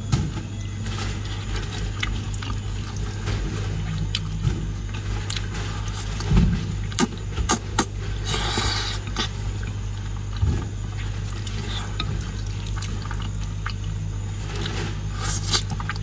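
Eating sounds of saucy noodles and shrimp: short wet chewing clicks and smacks, with a long noodle slurp about eight seconds in and more slurping clicks near the end, over a steady low hum.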